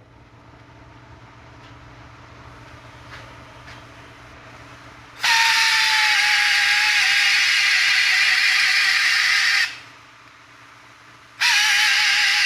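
A power tool running in two loud bursts, one of about four and a half seconds and a second starting about eleven seconds in. Each burst is a strong hiss over a steady whine that dips slightly just after it starts.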